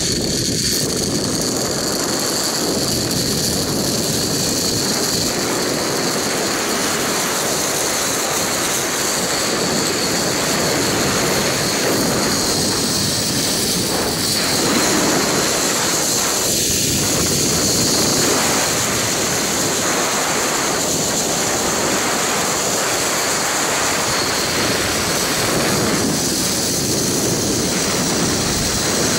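Zipline trolley running along the cable at speed: a steady high whine from the pulley wheels over the rush of wind on the microphone.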